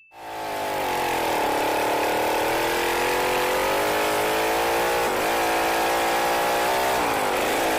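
Small gas engine of a shifter motorized bike running steadily. Its speed settles lower about a second in and dips briefly twice, near the middle and near the end.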